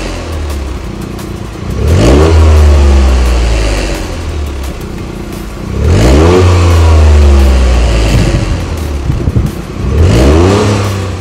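Toyota GR Yaris RZ's 1.6-litre turbocharged three-cylinder engine revved three times at a standstill, about four seconds apart, through a Fujitsubo aftermarket exhaust with its valve open. Each rev climbs quickly and then falls back toward idle.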